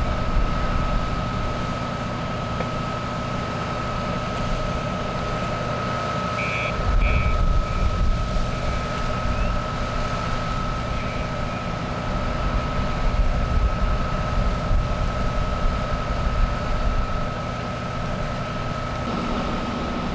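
A fire engine's engine and pump running steadily, feeding the hose line, with a constant high whine over a low rumble. Uneven low rumbling comes and goes about a third of the way in and again later.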